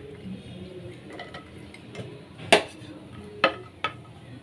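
Cashews being stirred with a wooden spoon in ghee in a nonstick frying pan, with three sharp kitchenware knocks against the pan and plate. The knocks come about two and a half, three and a half and four seconds in, and the first is the loudest.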